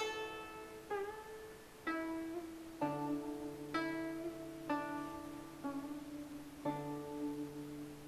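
Background music: a plucked string instrument playing slow single notes, about one a second, each ringing out and fading with a slight waver in pitch.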